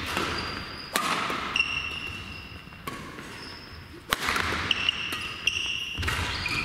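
Badminton rally: a badminton racket strikes the shuttlecock three times, sharp cracks a second or two apart that ring in a hall, with sneakers squeaking on the court floor between the hits.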